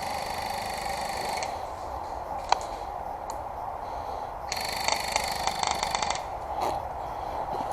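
Airsoft electric gun firing bursts: a rapid mechanical rattle runs at the start for about a second and a half. A single sharp shot comes about 2.5 s in. A second rattling burst of quick clicks follows about 4.5 s in and lasts about a second and a half.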